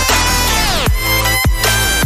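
Electronic background music with a heavy bass beat and a falling synth sweep about half a second in.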